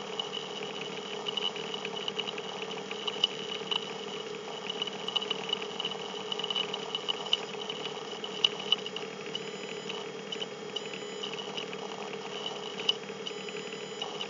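Steady background hiss and hum from the recording microphone, with scattered faint crackles and clicks.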